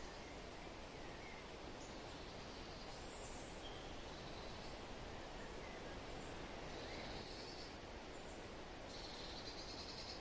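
Steady wind noise, with a few faint, short, high bird calls or trills above it about a third of the way in and again near the end.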